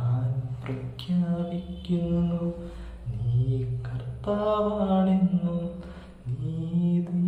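A man singing unaccompanied, holding long steady notes and stepping between pitches in a slow melody.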